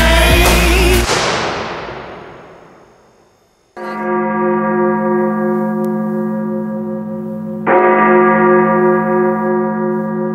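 The end of a pop song dies away over the first few seconds. After a brief hush, a deep bell tolls twice, about four seconds apart, each stroke starting sharply and ringing on until the next.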